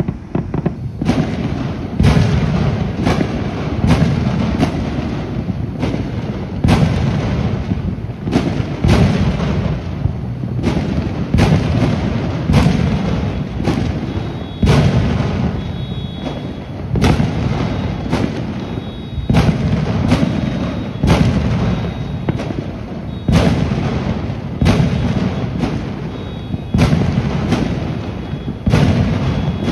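Many fireworks exploding across the city at once: a steady run of sharp booms, one or two a second, over a continuous rumble of more distant bursts.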